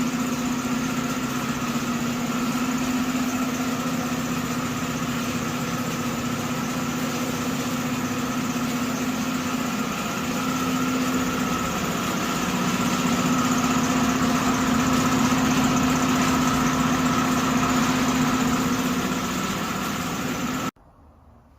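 A machine running steadily with a constant droning hum, cut off abruptly near the end.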